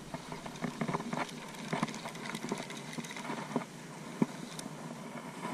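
Spinning reel being cranked to retrieve the line, with faint irregular clicks and light handling rustle.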